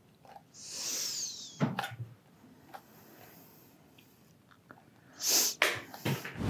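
Two loud slurps of a drink from a mug, about a second in and again near the end, the first with a falling whistle in it. Small clicks and knocks fall between and after them.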